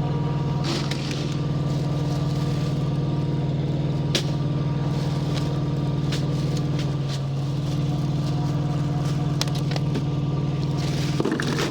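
A truck's diesel engine idling steadily with a low, even hum, with a few sharp clicks and knocks over it, one louder about four seconds in.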